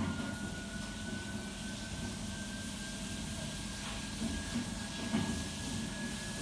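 Kitchen background noise: a steady low hum and rumble with a faint, thin whistle that rises slowly in pitch throughout, and a few light clinks from work at the counter.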